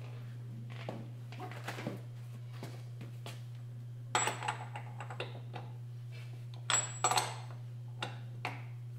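Steel socket and wrench clinking and clanking against the front wheel hub while the 35 mm axle nut is loosened. Scattered clicks, with two louder clattering bursts with a short metallic ring about four and seven seconds in, over a steady low hum.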